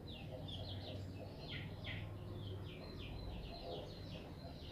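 Small birds chirping in quick, repeated series of short high calls, over a low steady hum.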